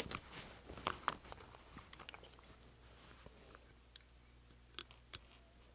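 Faint scratches and small clicks of a metal hand tool working a cut thread end into a stitch hole in leather, thinning out to a few isolated light ticks near the end.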